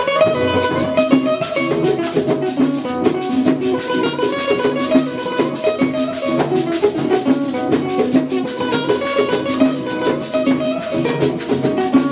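Background music: a lively tune of plucked string notes over a steady drum beat, with the percussion coming in just under a second in.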